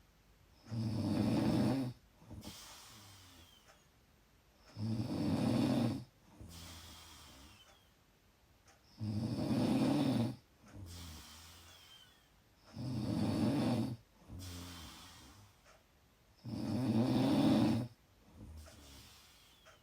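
A sleeping person snoring loudly and rhythmically: five snores about four seconds apart, each followed by a quieter breath.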